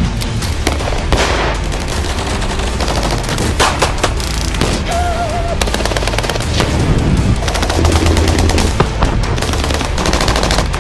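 Gunfire: rapid automatic bursts and single shots, densely packed together.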